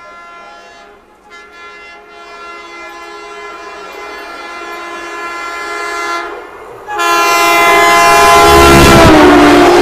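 Intercity Express train's horn sounding a long steady note as the train approaches at speed, growing louder, with a short break about six and a half seconds in. It then sounds at full loudness over the rush of the train passing close by, its pitch dropping as the locomotive goes past.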